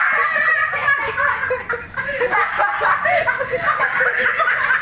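Several people laughing loudly together, their voices overlapping.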